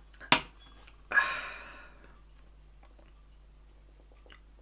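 A sharp knock as a glass is set down on a table, then about a second in a loud breathy exhale, a sigh after a gulp of drink, fading out within a second.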